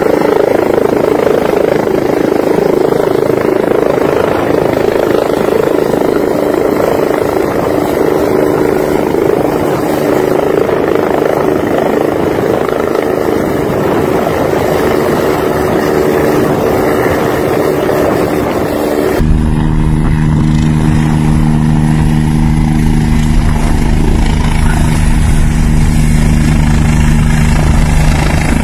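Eurocopter EC145 rescue helicopter hovering at very close range: a loud, dense rush of rotor noise. About two-thirds of the way through, the sound changes suddenly to a steady rotor-and-turbine hum with clear held tones as the helicopter hangs off the slope.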